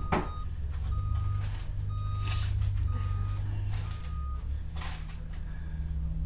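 Backup alarm on a small sidewalk snow plow machine beeping about once a second, five times, then stopping, over the steady low rumble of its engine.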